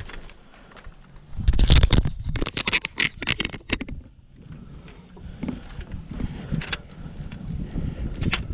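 Handling noise in a fishing boat while a landing net is readied: a loud bump about a second and a half in, then a quick run of scrapes and clicks. After that it is quieter, with a few scattered knocks.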